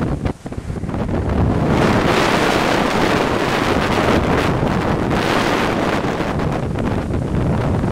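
Hurricane-force wind buffeting the camera's microphone in gusts. It drops briefly just after the start, then blows louder and fuller from about a second and a half in.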